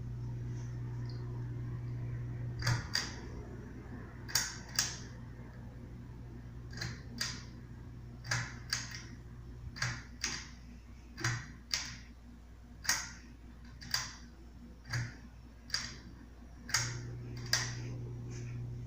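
Hampton Bay Glendale ceiling fan's pull-chain speed switch clicking over and over, often in quick pairs, about a dozen times, while the motor's low hum drops away about three seconds in and comes back near the end. The pull chain and the capacitor are faulty, according to the uploader.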